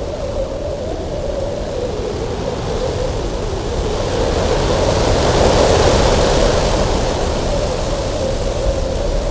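Strong cold wind blowing steadily with a constant whistling tone, swelling into a louder, hissier gust about halfway through, then easing back.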